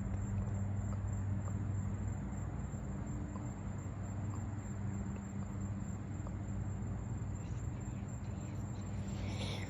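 Outdoor ambience with a steady low hum and faint insects. A brief chirp comes near the end.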